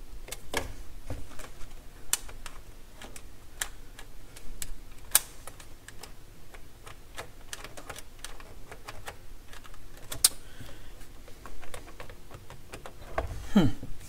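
Irregular light clicks and taps of the Dual CS 607 turntable's tonearm elevator levers and plastic chassis being worked by hand.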